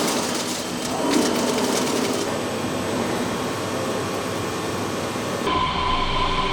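Machine tool's Y-axis drive running: a steady mechanical noise with some rattling, changing about five and a half seconds in to a steadier hum with a clear whine.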